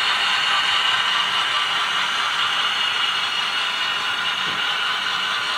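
HO scale model freight cars rolling past close by, their small metal wheels making a steady whirring clatter on the track.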